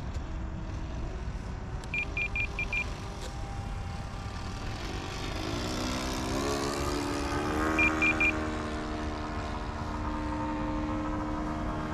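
Propeller and electric motor drone of a Great Planes Cherokee 46 RC plane in flight. The drone swells and shifts in pitch as the plane passes closer about halfway through, then holds a steady pitch. Short high beeps from the radio transmitter's trim buttons come as a run of five about two seconds in and three more near eight seconds, as the plane is trimmed out.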